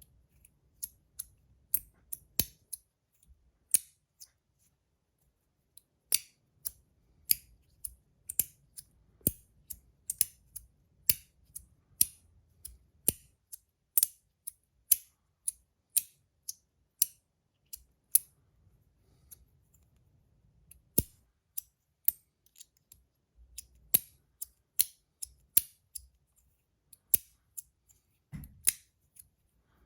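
Brass micro magnetic fidget slider clicking as its pieces are slid and snap together under the magnets: a run of sharp metallic clicks at roughly one or two a second, with short pauses twice.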